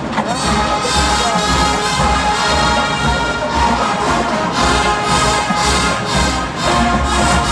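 Marching band playing a Motown arrangement: brass carrying the tune over a steady drum beat.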